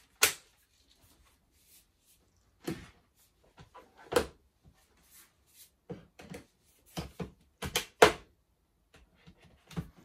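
Plastic clicks and clunks of a Miele Triflex HX1 Pro cordless stick vacuum being put back together, its handheld unit, wand and floor head knocked and snapped into place. About ten separate sharp knocks come at irregular intervals, bunching closer together between six and eight seconds in, where the loudest one falls.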